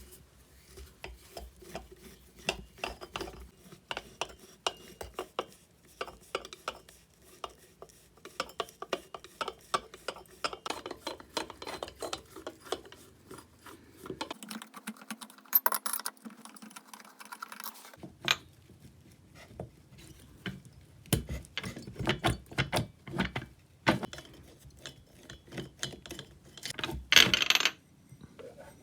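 Hand tools and metal parts clicking and clinking in irregular light knocks during the disassembly of a chainsaw, with a couple of louder knocks.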